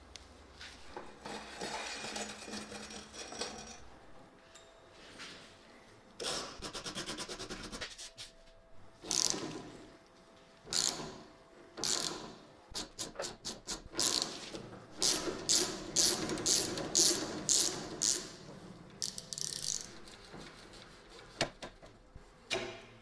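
Mechanical work on bicycle parts: scattered clicks, knocks and scraping, with a short run of rapid, ratchet-like clicking about six seconds in and a dense stretch of sharp clicks later on.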